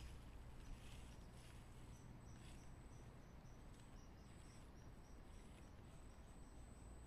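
Near silence in woodland, with a faint high chirp repeating about three times a second through the middle.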